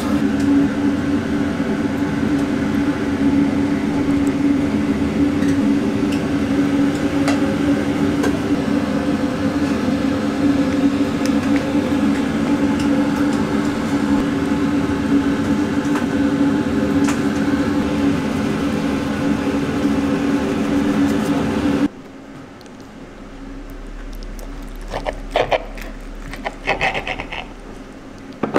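Steady machine hum with a strong low drone, cutting off abruptly about two-thirds of the way through. A quieter stretch follows, with a few light metal clinks of a fork against the plate as the fried eggs are cut.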